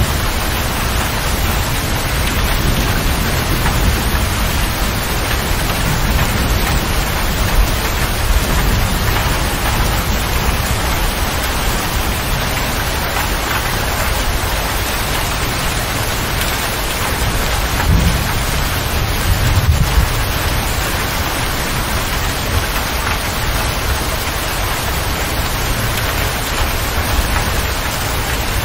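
Steady heavy rain beating on a motor grader's cab roof and windows, heard from inside the cab. A low rumble of thunder rolls in about two thirds of the way through.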